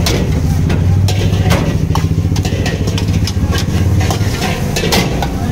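Large steel ladle scraping and knocking against a big iron wok as a heap of fried rice is stirred and tossed, a few sharp clinks standing out, over a steady low rumble.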